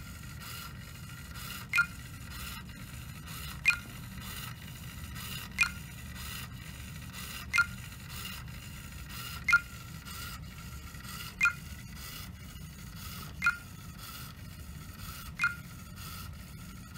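Forward-collision-warning beep alerts from the laptop, repeating about every two seconds, signalling that the detected vehicle is in the car's lane. A faint steady hum sits underneath.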